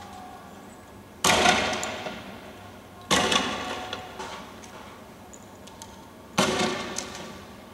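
Three bangs from tear gas launcher shots, about a second in, about three seconds in and at six and a half seconds. Each is loud and sudden and echoes away over about a second.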